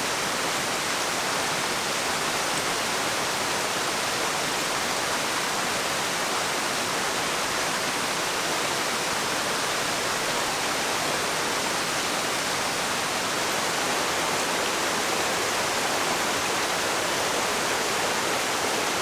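Waterfall rushing: a steady, unchanging hiss of falling water.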